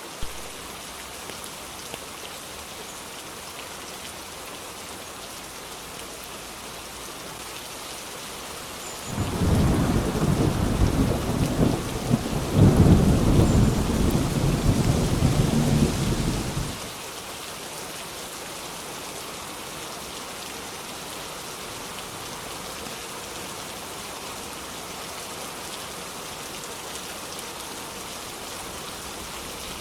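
Steady rain falling, with a long roll of thunder that breaks in suddenly about nine seconds in, swells to its loudest a few seconds later, and dies away about eight seconds after it began.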